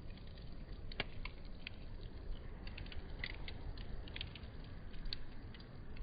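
Campfire crackling: scattered sharp pops and snaps from the burning wood over a steady low rumble of the flames.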